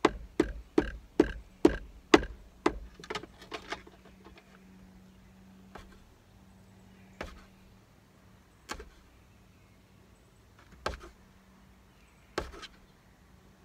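A screwdriver worked against wires and the plastic dash of a boat console while cutting a compass's wires: a quick run of sharp clicks and knocks, two or three a second, for the first few seconds, then a few scattered knocks.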